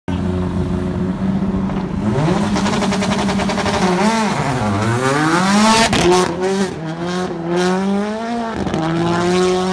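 Subaru WRX STI rally car's turbocharged flat-four engine being revved hard as the car is flung around cones. The engine holds steady revs for about two seconds, then its pitch rises and falls several times with the throttle, settling to steady revs again near the end.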